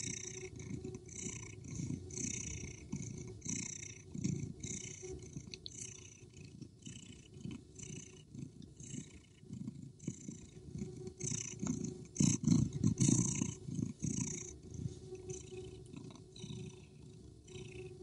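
Domestic cat purring continuously, with a breathy rise and fall about once a second. It gets louder for a moment about twelve seconds in.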